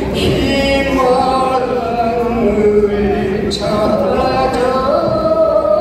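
A man singing a song solo into a handheld microphone, his voice amplified through the stage PA, in drawn-out notes that step up and down in pitch.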